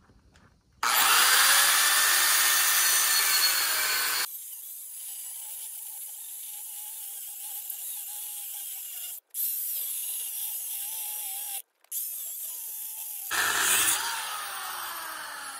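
Corded angle grinder cutting into a steel shock bracket on a trailer axle. It starts with about three seconds of loud cutting, then a thinner, quieter whine whose pitch wavers, with a few abrupt breaks. It ends with louder cutting again near the end.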